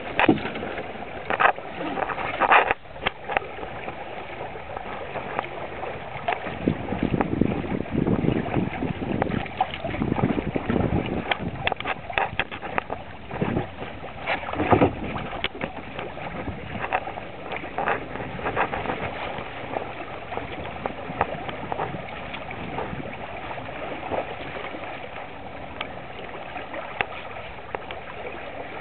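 Water rushing and splashing along a sailing trimaran's hulls while it is under way, with wind gusting across the microphone, heaviest in the middle, and scattered small knocks.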